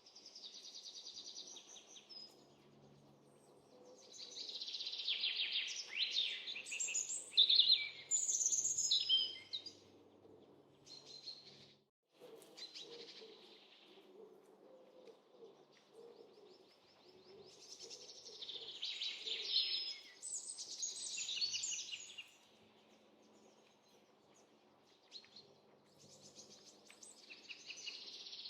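Small songbirds chirping and singing in busy bursts, with quieter lulls between, over a faint background hum; the sound drops out for an instant near the middle.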